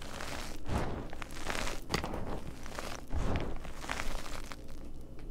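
Gym chalk crushed and crumbled by hand: a string of soft crunches as chunks break, with powder pouring back onto the pile. The crunching thins out near the end.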